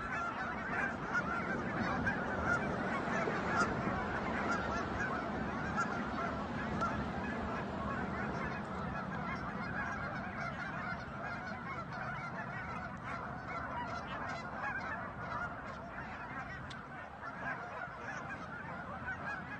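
A flock of wild geese honking continuously, many calls overlapping, growing slightly quieter near the end.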